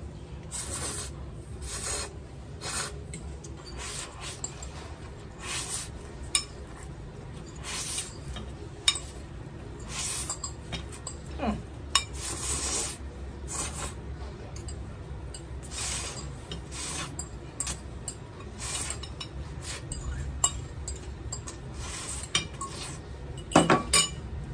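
Spaghetti being slurped and chewed, with a metal fork scraping and clinking against a ceramic bowl in short repeated bursts. A louder clatter of clinks comes near the end.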